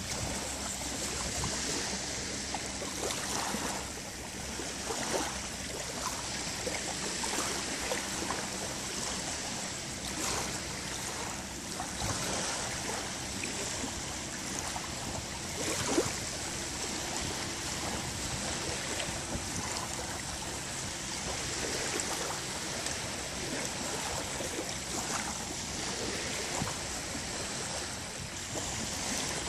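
Small waves of a calm sea lapping and fizzing on a sandy shore, a steady wash full of small crackles, with one sharper crackle about halfway through.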